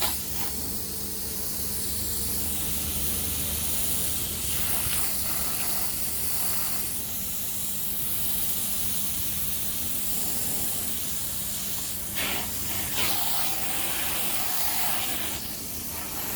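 A jet of water sprays steadily against the inside of a water tank as it is washed out, a continuous hiss with a steady low hum underneath.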